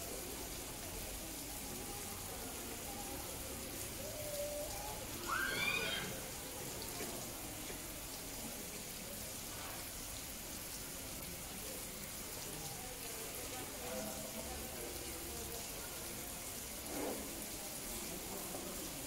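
Faint murmur of people talking over a steady hiss, with a short, high-pitched rising call about five seconds in.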